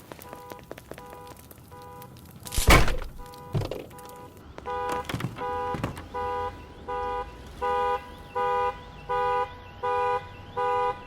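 An electronic alarm beeping on and off, a little under two beeps a second, faint at first and much louder from about four and a half seconds in. A loud bang about two and a half seconds in, followed by a few smaller thumps.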